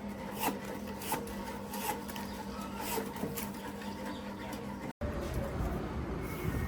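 Handwork rubbing and scraping with irregular clicks over a steady low machine hum; the sound cuts out for a moment about five seconds in.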